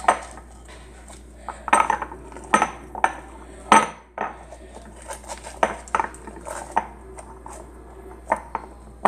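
Irregular clicks and knocks of fingers and a ball of slime against a bowl as leftover slime is picked off its sides.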